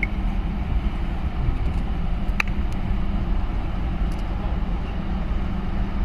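Steady low engine drone of a vessel with rumbling noise over the water, and a brief high chirp about two and a half seconds in.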